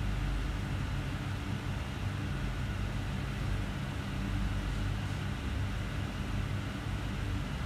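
Steady low rumbling hum with a few fixed low tones over a faint hiss; it holds even throughout, with no sudden events.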